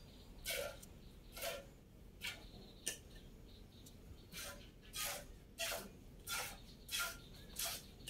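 Milk squirting from a cow's teats into a metal pot partly filled with milk during hand milking: short hissing squirts in a steady rhythm, about ten in all, a little over one a second.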